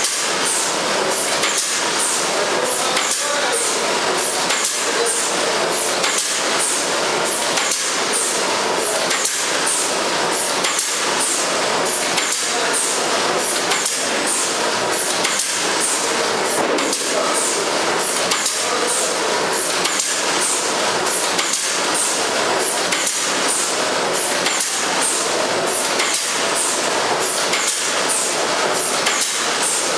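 Horizontal flow-wrap packing machine running: a steady mechanical clatter with a fast, even clicking.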